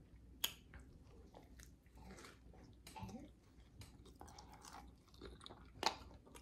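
Faint mouth sounds of a person chewing a mouthful of pizza loaded with meats and vegetables: soft wet smacks and crunches, with a sharper click about half a second in and another near the end.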